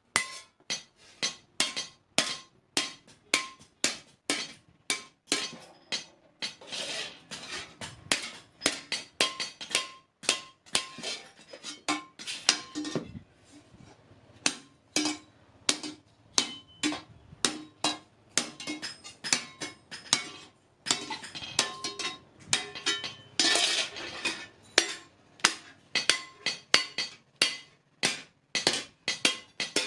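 Blacksmith's hammer striking iron on an anvil while forging a spade, about three ringing metallic blows a second, with a short pause about halfway through.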